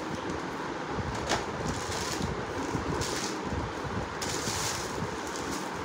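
Rustling and crinkling of plastic and paper gift wrapping as presents are handled and unwrapped, with a sharp crinkle a little over a second in.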